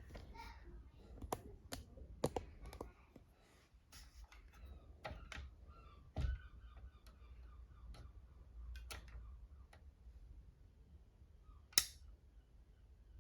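Scattered clicks and light knocks from handling an electric scooter's folding stem while it is checked for play after adjustment, with a duller thunk about six seconds in and a sharp click near the end.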